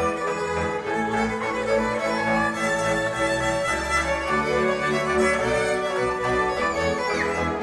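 Folk string band music: fiddles play a dance tune over a bowed bass line.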